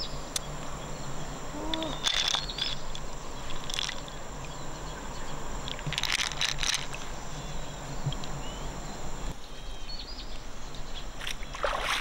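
Shallow river water sloshing and trickling, with a few brief splashes, about 2, 4, 6 and 11 seconds in.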